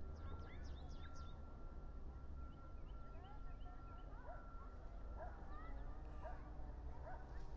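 Birds chirping and calling in many short, quick notes, some sliding up in pitch, over a steady low hum. A thin steady tone runs under the calls for the first few seconds, then stops.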